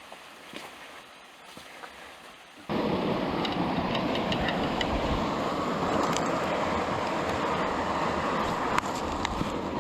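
Faint background with a few light clicks, then, about three seconds in, a sudden cut to the loud, steady rush of river water running over rocks and rapids.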